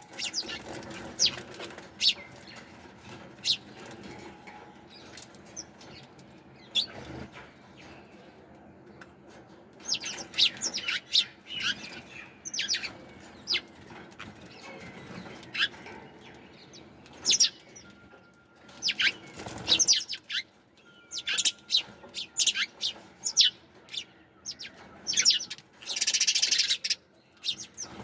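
Sparrows chirping: short, sharp chirps come singly at first, then in quick clusters, with a dense flurry near the end.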